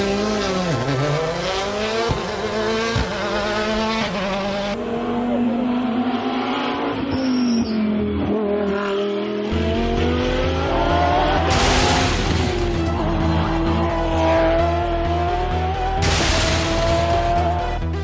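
Dubbed-in race-car engine sound effects revving up and down, with two tyre-squeal bursts in the second half. Electronic music with a steady beat comes in about halfway.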